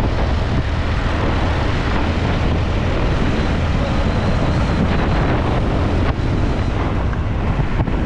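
Steady wind buffeting the microphone, with a heavy low rumble underneath.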